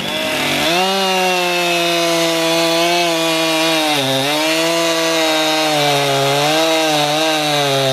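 Stihl 500i fuel-injected chainsaw at full throttle cutting through a log of dried red oak. The engine note starts about half a second in, stays high and steady, and dips briefly about four seconds in and again near the end as the saw loads in the cut.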